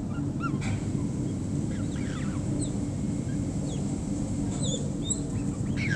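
Garden birds calling in short, curving whistled notes, scattered a few times a second, over a steady low rumble.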